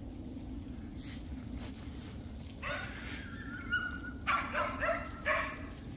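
A dog giving short, high-pitched yips and whines, first about halfway through and then several in quick succession near the end, over a steady low background hum.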